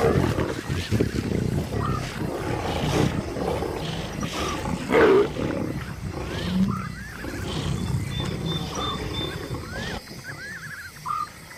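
Lions growling and snarling as they feed together on a carcass, with a louder snarl about five seconds in. The growling drops away near the end.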